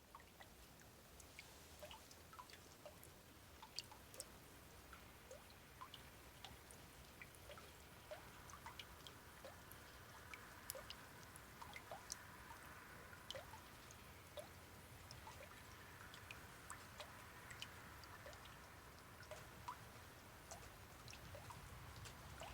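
Water drops dripping irregularly into a puddle, several drops a second, each a short plink, over a faint hiss.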